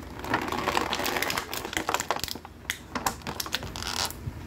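Clear plastic blister packaging crackling and crinkling as hands pull and bend it to free an action figure, a dense run of sharp crackles and clicks.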